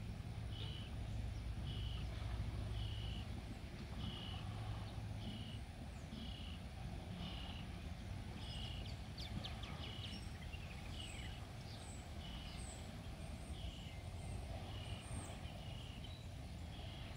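Outdoor garden ambience: a short, high animal call repeats about once a second, with a few quicker chirps from other animals in the middle and a low steady hum underneath.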